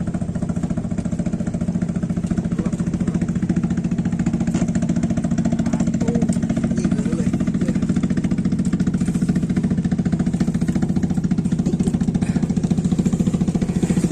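A small engine running steadily at a constant speed, with a fast, even putter.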